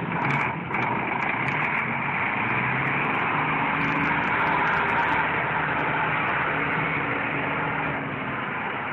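Beiben V3 6x4 tractor unit's 420 hp engine running as the truck drives past at close range, loudest about halfway through as it passes and easing off near the end.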